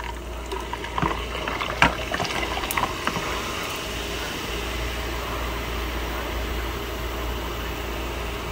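A fizzy drink poured from a plastic bottle over ice cubes in a glass, with a few sharp cracks and clinks of ice in the first three seconds, then a steady fizzing hiss as the foam rises over the ice.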